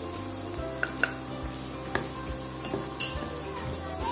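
Chopped vegetables sizzling in a nonstick kadai while a wooden spatula stirs them. The spatula knocks on the pan a few times, loudest about three seconds in.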